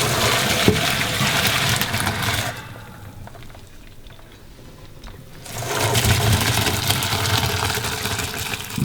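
Pot of boiling pasta water and penne poured out into a colander, water rushing and splashing down in two pours of about three seconds each, with a short pause between.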